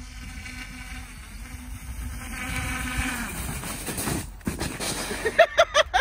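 Two 950 kV brushless motors with propellers on a remote-control inflatable raft buzzing with a steady high whine, strongest two to three seconds in, then stopping abruptly about four seconds in. Near the end, short rapid bursts of a man laughing.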